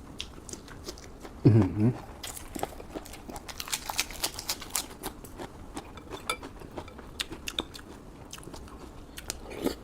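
A person chewing and biting a mouthful of spicy rice-vermicelli noodles with chillies, close to the microphone: a run of small wet clicks and crunches. About a second and a half in there is a brief low vocal sound.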